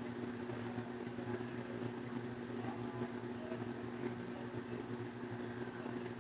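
Steady low mechanical hum with a constant droning tone and no clicks or knocks.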